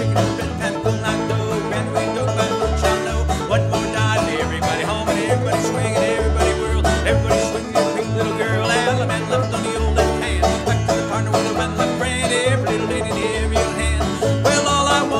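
Old-time string band playing an instrumental dance tune: fiddle, clawhammer banjo, acoustic guitar and upright bass, with the bass thumping out a steady alternating beat.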